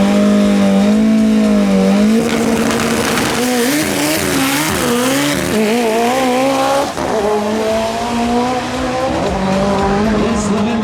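Drag car held at high revs with tyre squeal. The pitch holds steady, wavers up and down in the middle under a hiss of spinning rubber, then settles again.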